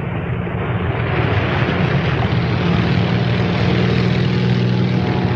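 Steady engine drone under a loud rushing noise that swells during the first second, a dramatized film sound effect.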